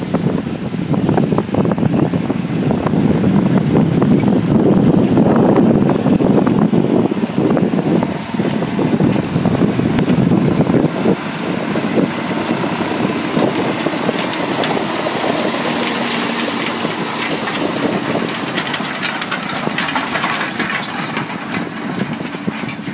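John Deere tractor engine running steadily in the field, louder in the first half, then a little quieter with more hiss.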